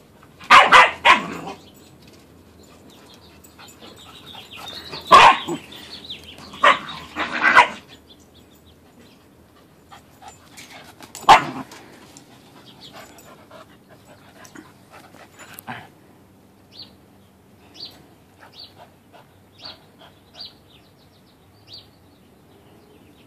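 Dogs barking as they play-fight, several loud, sharp barks in the first twelve seconds, then only faint short sounds.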